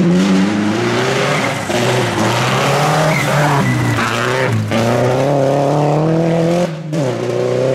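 Rally car engine revving hard on a gravel stage, its note climbing and dropping back sharply three times as it shifts up through the gears, over a hiss of tyres and gravel.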